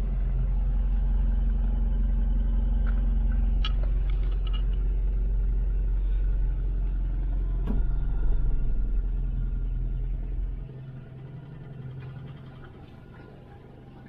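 Toyota Qualis engine running, heard from inside the cabin as a steady low rumble. About ten and a half seconds in it drops much quieter as the deepest part of the rumble falls away.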